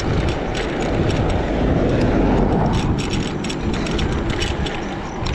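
Wind rushing over the microphone and road traffic noise while riding a bicycle along a highway, swelling about two seconds in, with scattered sharp clicks and rattles.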